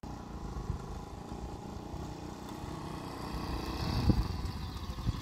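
Motorcycle engine running as the bike is ridden uphill, growing louder toward the end, with a sharp thump about four seconds in.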